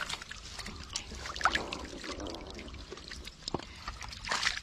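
Hands sloshing and splashing in shallow muddy water while groping for a fish, with scattered small sharp splashes and drips.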